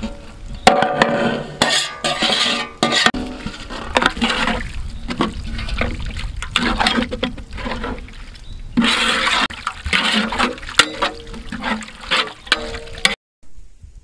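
Goat intestines being stirred into wet masala gravy in a large aluminium pot with a flat metal spatula: liquid sloshing with scrapes and clinks of metal on the pot. It cuts off suddenly near the end.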